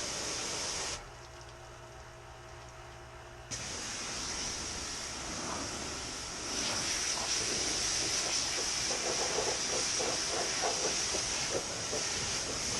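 Steady spraying hiss. It breaks off about a second in, resumes a few seconds later and grows louder, with a light patter of ticks mixed in near the end.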